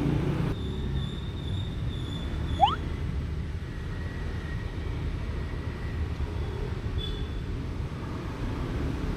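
Steady low rumble, with two short, sharp chirps that rise quickly in pitch: one about two and a half seconds in and one at the very end.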